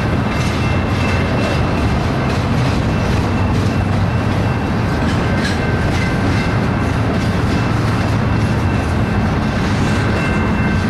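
BNSF double-stack intermodal train's well cars rolling past steadily: a constant low rumble of steel wheels on rail, with scattered light wheel clicks and a faint thin high ringing tone underneath.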